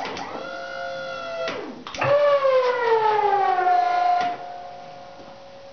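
Snow plow hydraulic pump's electric motor whining in two runs: a short one, then a second starting about two seconds in whose pitch sinks steadily before it cuts off a little after four seconds, leaving a faint steady hum.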